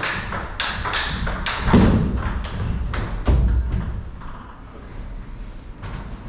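Table tennis balls clicking sharply off paddles and tables in an irregular series of quick taps. The taps thin out after about four seconds.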